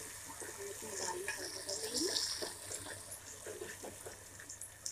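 Chopped onions frying in hot oil in a steel pot, sizzling as they turn golden, while a metal spoon stirs and scrapes against the pot.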